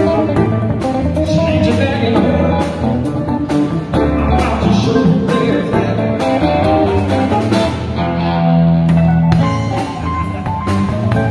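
A live blues band playing: electric guitar, electric bass, keyboard and a drum kit keeping a steady beat, with one long held note near the end.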